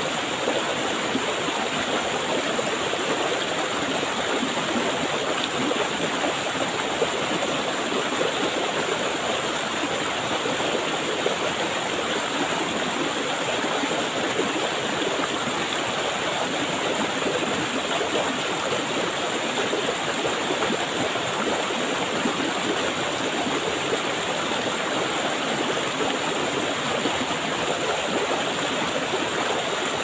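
Stream water cascading over boulders into a rock pool, with small waterfalls behind: a steady, unbroken rushing of water.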